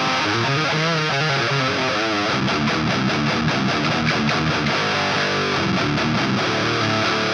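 Electric guitar playing a metal riff through the Audiority Klirrton Grindstein plugin's chainsaw channel at its first settings: a heavily distorted Swedish-death-metal 'chainsaw' tone. Held notes give way to fast, even picking about two seconds in.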